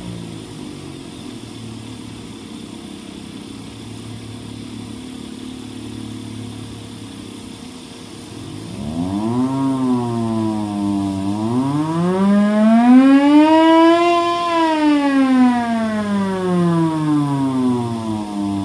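Hand-crank siren fed by a blower: a steady low drone for the first half, then the siren winds up about 9 s in, dips, climbs again to its highest pitch and slowly winds back down near the end. The blower makes the drone underneath.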